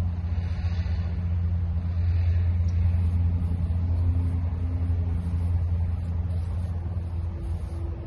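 Steady low engine-like rumble from a motor running nearby, with a faint hum above it that shifts higher in pitch in the second half.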